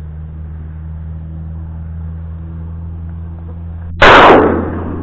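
A single shotgun shot about four seconds in, fired at a duck flying overhead: sudden and very loud, with a short fading tail. Before it there is only a steady low hum.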